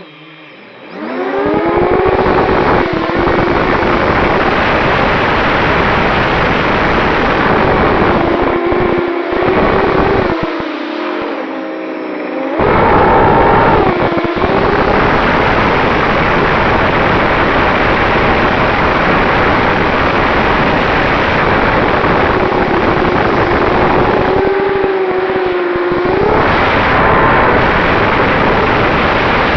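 250-size FPV racing quadcopter in flight: its brushless motors and propellers whine and buzz, the pitch rising and falling with the throttle over a loud rushing noise. The sound drops away briefly at the start and again around ten seconds in, then comes back up.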